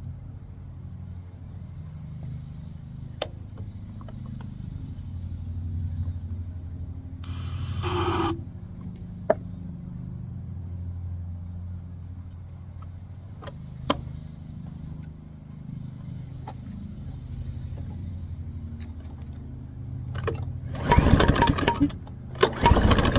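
Small lawnmower engine running at low speed with an uneven putter. There is a short hissing rush about seven seconds in, and near the end it runs much louder in surges. The title puts the mower's trouble down to a dirty carburetor and burning oil.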